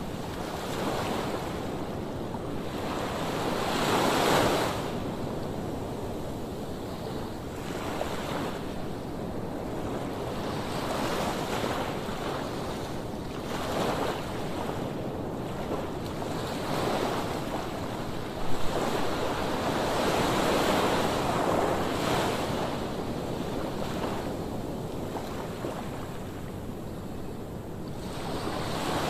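Rough sea waves breaking on a sandy beach, the surf swelling and falling every few seconds, with wind buffeting the microphone. A brief thump about two-thirds of the way through.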